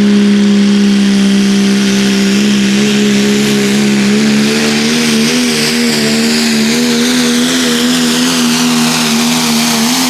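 Diesel pulling truck's engine at full throttle under heavy load from the sled, a loud high steady note that begins to waver up and down about a third of the way in as the revs rise and fall.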